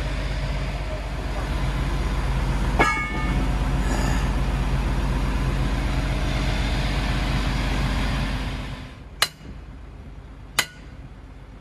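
Heavy engine running steadily, with a single metallic clank about three seconds in. Near the end the engine noise drops away and a sledgehammer strikes steel twice, about a second and a half apart, each blow ringing briefly, driving the master pin into the excavator's track link.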